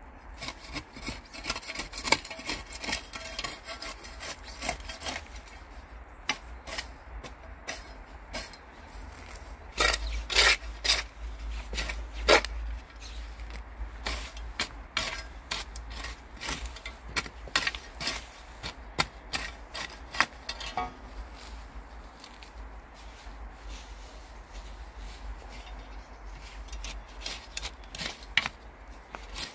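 A small hand scoop scraping and digging into dry soil and grass roots at the edge of a grave slab, in uneven scratching strokes with sharp clicks, loudest about a third of the way in.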